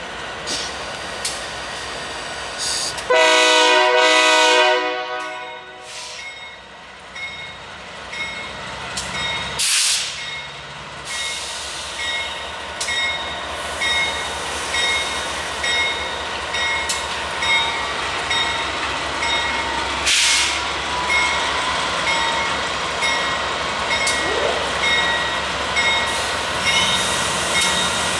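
A diesel locomotive's K3LA air horn sounds one blast of about two and a half seconds, a few seconds in. After it the train rolls on with steady rumbling and a rhythmic clatter, roughly one knock a second, and a couple of sharper bangs.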